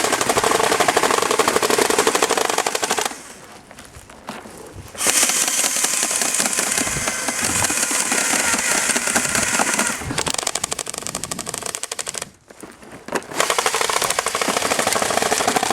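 Airsoft guns firing on full-auto in long bursts of rapid clicks, in three stretches with two short pauses between them.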